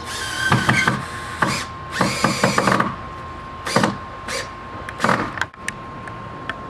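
Cordless drill driving hinge screws into a door jamb, running in several short bursts.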